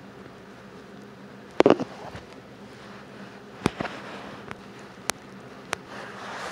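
Kitten fur and body rubbing and bumping against the phone's microphone, making a few sharp knocks and crackles over a steady hiss. The loudest cluster comes about one and a half seconds in, with single knocks later.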